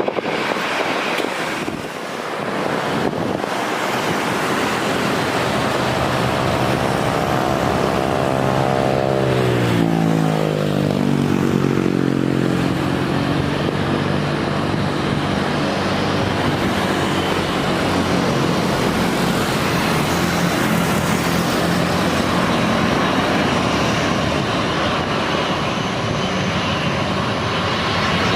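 Airbus A320 jet airliner on landing approach passing close by: a steady jet roar with a whining engine tone that drops in pitch about ten seconds in as the plane goes past, then the roar carries on.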